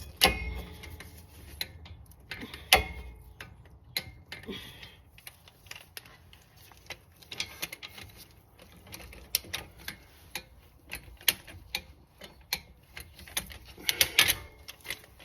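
Socket and torque wrench clicking in short irregular runs, with a few sharp metal clacks, as the front brake bolts are tightened to torque.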